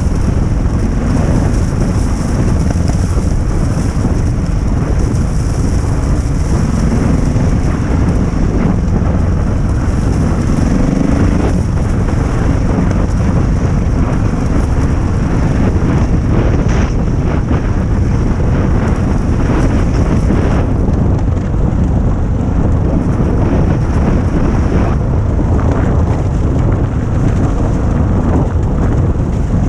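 Adventure motorcycle's engine running at a steady pace while riding off-road, with wind buffeting the microphone throughout.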